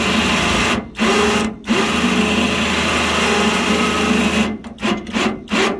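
Badland ZXR 2500 electric winch motor running in starts and stops as it reels its steel cable in: a run of under a second, a short one, a longer run of nearly three seconds, then several quick blips near the end as the hook is snugged up to the fairlead.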